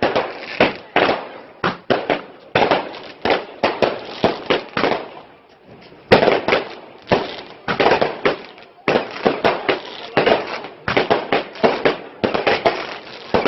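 Fireworks going off in quick succession: many sharp bangs and crackles, with a short lull about five to six seconds in before a loud bang starts them again.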